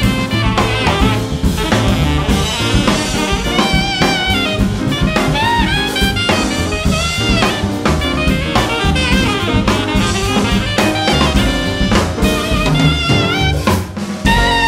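Jazz quartet of alto saxophone, piano, bass and drums playing. The alto saxophone carries a quick line of short, bending notes over busy drums, with a brief drop in loudness near the end.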